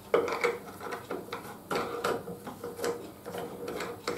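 Metal parts of a circular saw blade sharpener clicking and rattling as its blade-holder arm is fitted and adjusted by hand, a string of small clicks and knocks.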